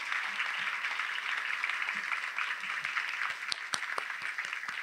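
Audience applauding steadily, many hands clapping at once, with a few sharper individual claps standing out in the second half.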